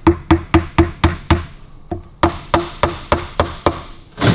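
Mallet tapping a crankcase stud through the joined halves of a Harley-Davidson WLC 45 engine's crankcase, driving it through in line. Quick, even knocks, about four a second, each with a short ring, in two runs with a brief pause between them and a louder knock near the end.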